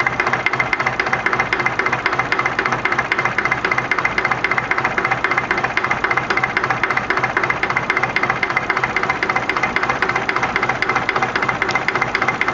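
SOM 30 B engine running steadily with a rapid, even clacking knock, an engine the owner finds smooth-running but which smokes heavily and knocks for a cause he doesn't know.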